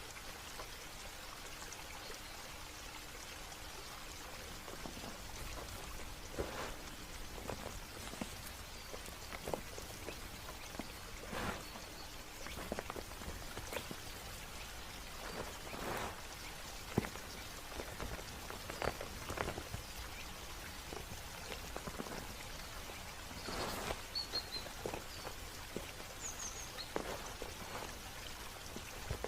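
Irregular water drops and small splashes over a steady hiss of water, with a few faint bird chirps.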